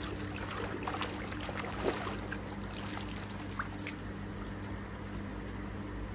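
Pond water splashing and dripping as a landing net holding a koi is hauled out of the water, with several sharp splashes in the first few seconds that then settle. A steady low hum sounds beneath.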